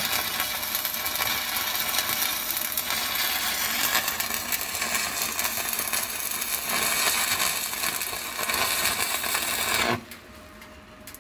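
Stick (MMA) welding arc from a coated electrode, fed by a Hanshin HST-200MIG welder in arc mode, crackling steadily as the bead is run; the arc goes out abruptly about ten seconds in.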